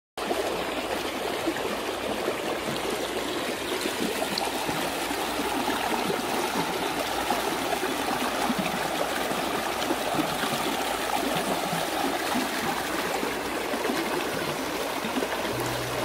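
Shallow rocky mountain stream flowing steadily over stones and around boulders.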